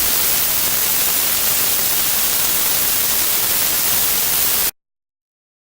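Steady, loud static hiss like white noise, the noise floor of a recording amplified far past its limits, with no music left in it. It cuts off suddenly to dead silence near the end.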